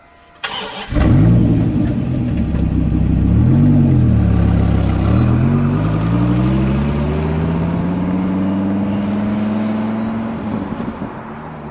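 Dodge Viper V10 starting up and catching loudly, given one short blip of the throttle, then pulling away with the engine note rising steadily for several seconds before it eases off as the car moves off into the distance.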